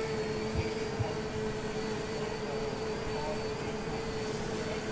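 Electric propellers of a small orange tail-sitter VTOL drone in the air, a steady hum that holds one pitch. Two soft low thumps come about half a second and a second in.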